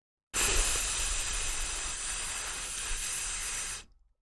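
A man holding a voiceless 'th' sound (the dental fricative /θ/): a steady hiss of breath forced between tongue and upper teeth, starting shortly in and cutting off after about three and a half seconds.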